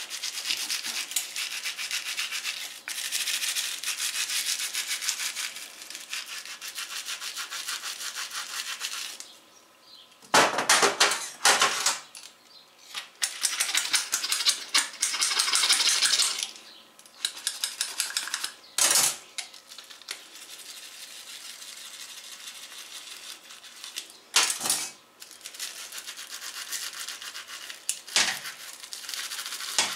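A bottle brush scrubbing the inside of a guinea pig water bottle in dish-soap water: a fast, steady rasp of bristles. It comes in stretches with short pauses, and there are a few louder knocks or scrapes.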